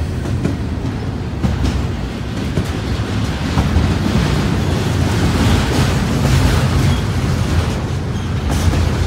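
BNSF double-stack intermodal freight train rolling past, a steady rumble of steel wheels on the rails with some clatter from the well cars.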